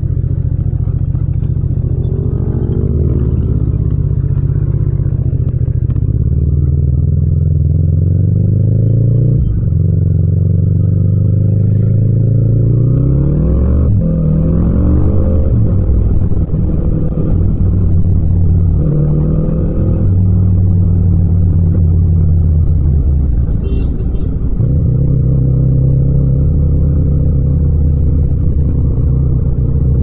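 Yamaha MT-07's parallel-twin engine and exhaust under way. The revs climb in steps through several gear changes from about a quarter of the way in to about halfway, then hold fairly steady at cruising speed.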